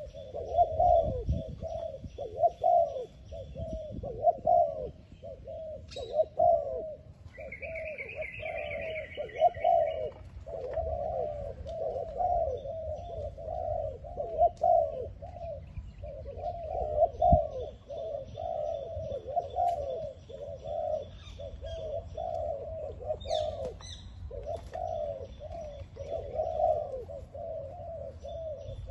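Spotted doves (terkukur) cooing over and over in low, rolling phrases that barely pause. Another bird chirps briefly about a third of the way in.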